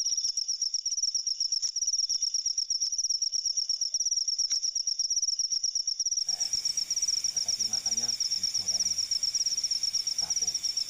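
Crickets chirping in a fast, steady, high-pitched pulsing trill, with faint voices in the background from about six seconds in.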